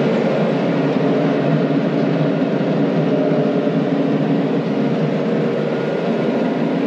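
John Deere 9500 combine running steadily: an even mechanical drone with several held tones.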